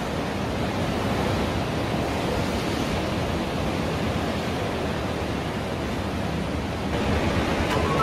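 Steady rush of sea waves and wind. A few musical notes come in near the end.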